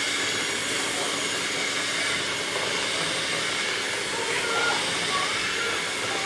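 Electric hand mixer running steadily, its beaters whipping thick cream-cheese cheesecake batter in a metal pan.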